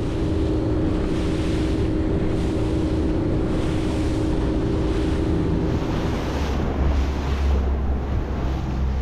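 Suzuki outboard motor running a boat at speed, with water rushing along the hull and wind buffeting the microphone. About six seconds in, the engine sound turns deeper.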